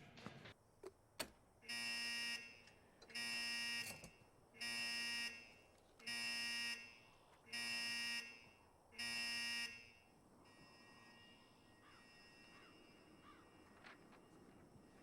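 Electric buzzer sounding six times, each buzz about two-thirds of a second long and about one and a half seconds apart.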